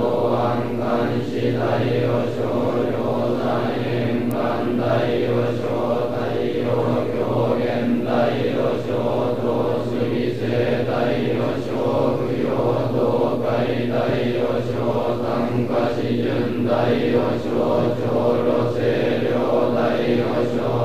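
Large group of Sōtō Zen monks chanting a sutra in unison, a steady, droning recitation held on one pitch with a running syllabic pulse.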